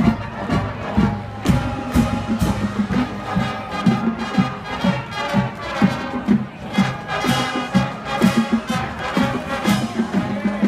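High school marching band playing: brass carrying held notes over a steady drum beat.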